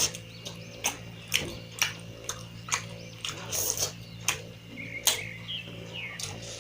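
Close-miked wet chewing and lip smacking while eating mutton curry with rice, with sharp smacks about once or twice a second over a steady low hum.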